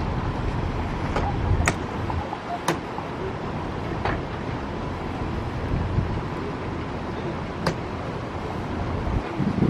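A large motor yacht's engines running as it cruises slowly past, heard as a steady low rumble mixed with noise. A few sharp clicks stand out over it.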